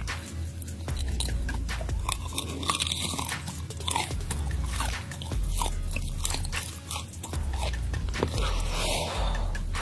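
Close-miked crunching and chewing of deep-fried tarantula, with many crisp crackling bites throughout.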